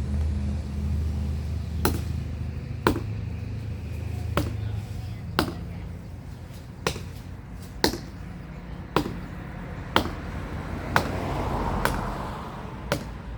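Repeated sharp chopping strikes, about one a second, as wood is hacked at by hand during limb cutting. A low engine hum fades away in the first few seconds.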